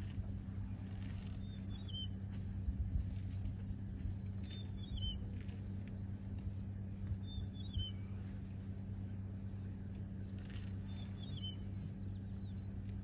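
A bird gives a short, falling chirp four times, a few seconds apart, over a steady low hum.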